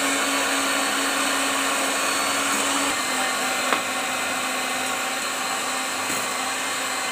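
Moulinex electric hand mixer running steadily, its beaters whipping egg whites as powdered sugar is added. About three seconds in, the motor's hum drops slightly in pitch, and there is a single light click shortly after.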